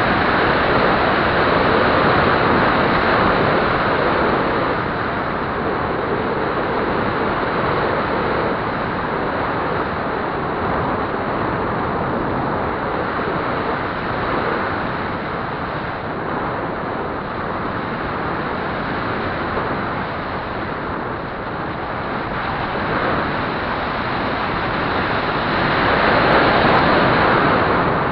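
Steady rush of wind over the microphone of a camera riding on a Flyzone Calypso radio-controlled plane in flight, swelling louder near the end.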